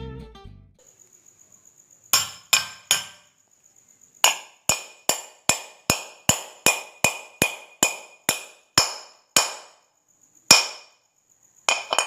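Hammer tapping a ball bearing into a ceiling fan's metal housing: sharp metallic strikes with a ringing tone after each, a short group of three, then a steady run of about two taps a second, then a few single taps near the end.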